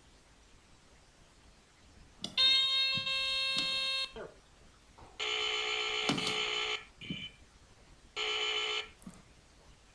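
A Pyrotector smoke alarm's horn sounding in three loud buzzing bursts, the first about two seconds long, the second about a second and a half, the last under a second, set off by smoke spray in a test.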